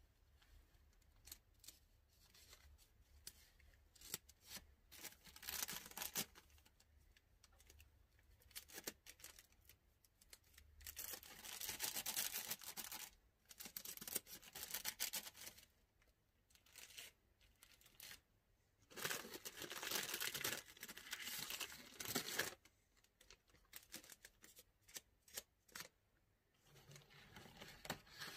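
Thin clear plastic bags crinkling and rustling as bundles of incense sticks are slid in and handled, in several stretches, the longest near the middle and about two-thirds of the way through, with scattered light clicks and taps in between.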